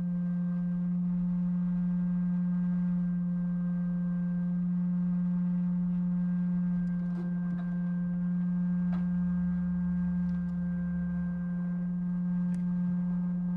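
Steady low hum with a strong single pitch and overtones, unchanging throughout, with a few faint ticks later on.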